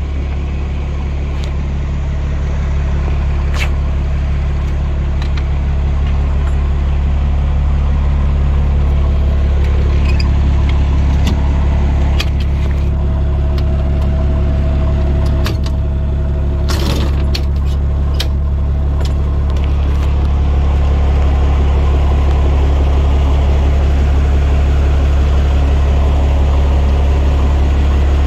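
Fire pumper truck's Cummins diesel engine idling steadily. Partway through, a few sharp metallic clicks and clanks come from a compartment door's D-ring latch being turned.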